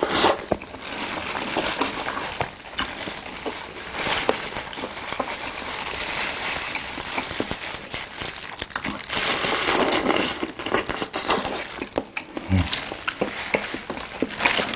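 Plastic gloves crinkling as hands crack and pick apart seafood shells, with many small clicks and crunches of shell.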